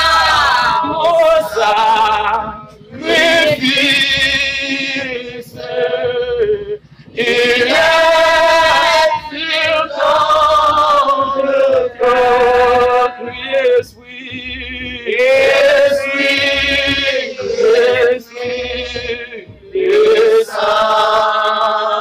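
Voices singing a worship song in long held phrases, a man's voice to the fore with others joining, pausing briefly between lines.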